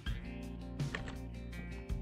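Background music: held chords with a steady beat.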